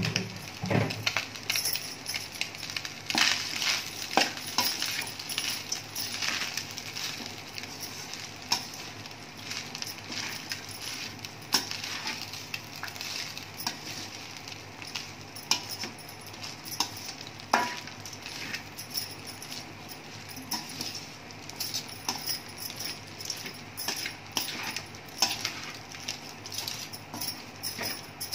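Perforated steel spoon scraping and clinking against a stainless steel pan as coconut rice is stirred and tossed: irregular metal-on-metal scrapes and knocks, with a soft rustle of the rice.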